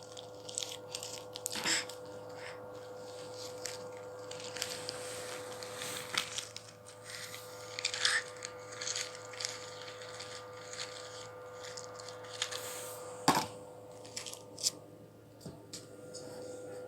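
Small cough syrup bottles being handled by a baby: irregular clicks, rattles and rustles, with one sharp knock about 13 seconds in. A steady low hum runs underneath.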